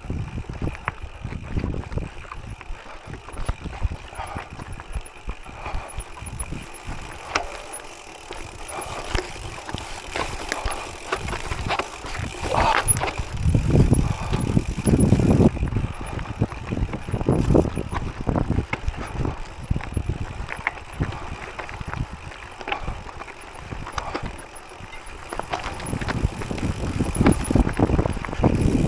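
Open U.P. gravel bike rattling and jolting over a rocky dirt trail: tyres crunching on loose stones, with an irregular run of knocks and clatters from the bike. The clatter swells loudest around the middle and again near the end.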